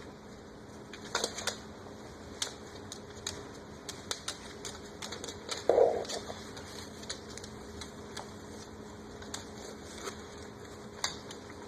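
Eclectus parrots' beaks and claws making scattered light clicks and taps, with one short call about six seconds in.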